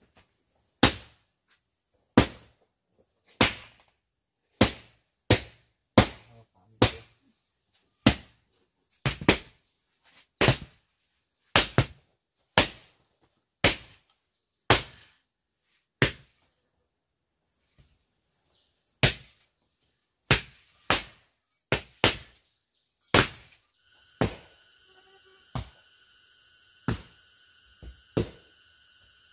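Repeated single hard strikes, roughly one every second, with a pause of a few seconds midway. From about 24 s a steady droning hum with several fixed tones joins in underneath.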